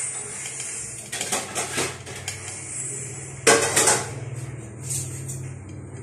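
Kitchen pots and metal cutlery clattering as they are handled, in a scatter of short knocks, with the loudest clatter about three and a half seconds in.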